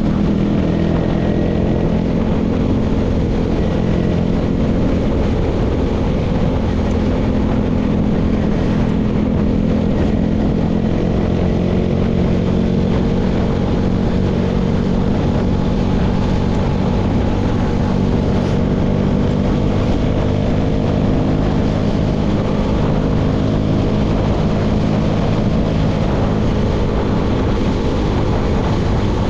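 Engine of a baler rig running steadily at constant speed, a continuous drone with no change in pitch.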